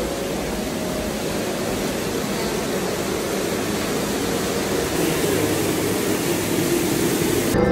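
Steady rush of shallow water flowing down a sloped walkway, an even hiss with no break.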